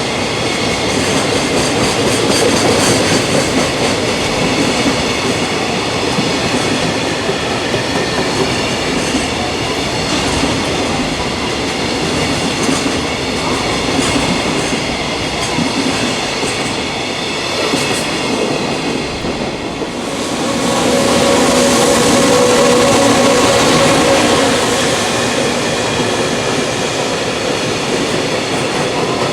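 A freight train running past: a steady rush of wheels on rail with some ringing high tones. About two-thirds of the way through it grows louder for a few seconds, with a stronger lower hum.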